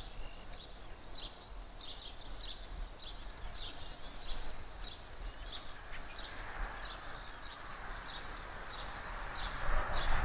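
A small bird sings short chirps about twice a second over a low outdoor rumble. From about six seconds a distant train's running noise rises and grows louder near the end.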